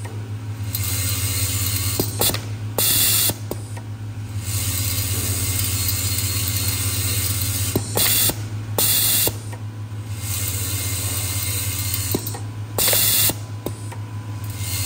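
Vibratory bowl feeder for screws and rivets running: a low steady electromagnetic hum, with the parts rattling along the spiral track and sharp clicks. Four short, loud hisses of compressed air come a few seconds apart.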